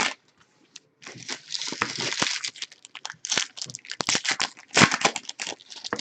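Trading-card pack wrappers crinkling and tearing as packs are opened and the cards handled, starting about a second in as a run of quick crinkles.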